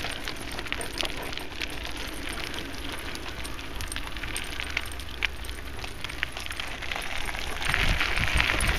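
Bicycle rolling along a gravel path with a dog running beside it on a lead: a steady crunch of tyres on grit, with scattered small clicks and jingles of metal. The noise swells louder near the end.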